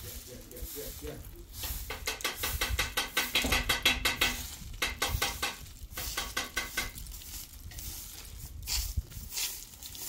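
Straw broom sweeping a dirt yard: bristles scratching and swishing over the ground in quick strokes, in bursts, with the busiest and loudest run about two seconds in.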